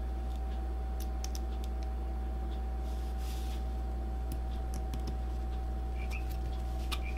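Scattered light clicks and taps of small plastic action-camera parts and screws being handled during reassembly, with a short scrape about three seconds in, over a steady low electrical hum.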